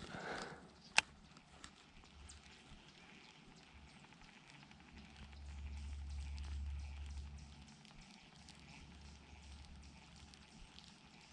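Faint irregular ticks and knocks over a low rumble of wind on the microphone, with one sharp click about a second in; the rumble swells for a couple of seconds midway.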